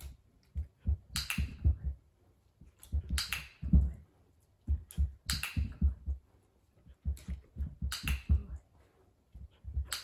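A dog's paws thudding on carpet in repeated quick bursts, about every two seconds, as it takes off, lands and turns after hopping a low PVC agility jump. Each burst carries a sharp click or two.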